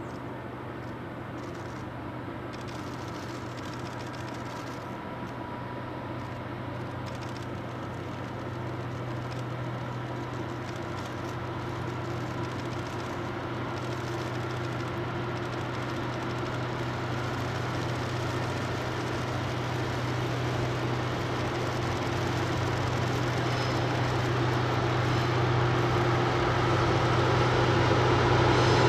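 Diesel train engine working steadily as the train approaches: a low, steady drone that grows gradually louder.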